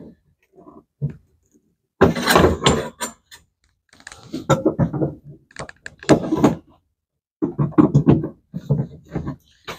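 Pliers working at the master cylinder filler caps through the floor of a 1961 Nash Metropolitan: metal clanking, knocking and scraping in irregular bursts as the caps are wrenched to get them off.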